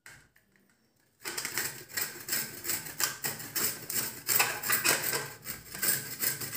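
Peeled carrot being grated on a stainless steel box grater: repeated rasping strokes, a few a second, starting about a second in.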